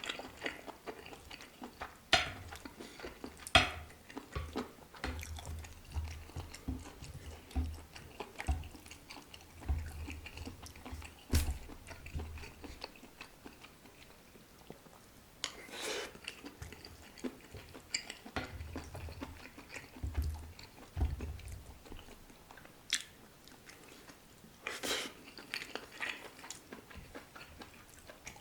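Close-miked chewing of chewy octopus and carbonara buldak noodles, with scattered sharp clicks of utensils against the dish.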